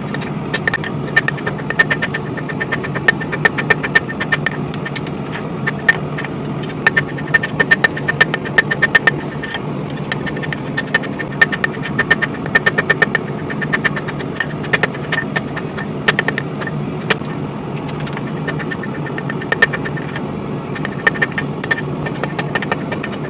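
Hammer blows on hot spring steel at the anvil, coming in irregular runs with a bright metallic ring, as the coil-spring blade is flattened out. Under them a forge runs with a steady noise.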